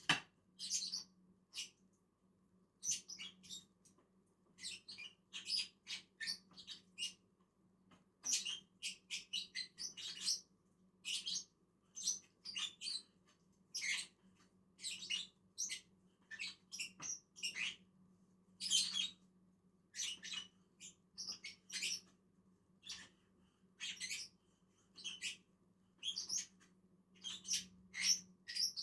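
Lovebirds (Agapornis) chirping: a rapid, irregular run of short, high-pitched chirps.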